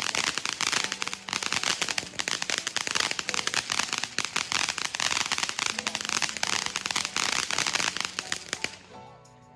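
Spirit of Freedom fountain firework burning with a dense, rapid crackle. The crackle cuts off a little before the end, and faint music comes in.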